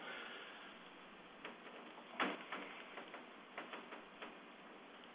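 Faint, irregular clicks and taps from operating the presentation computer, the loudest about two seconds in, over a low room hiss.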